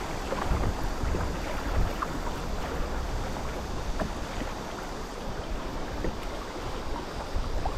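Steady noise of river water moving around a kayak, with wind rumbling on the microphone.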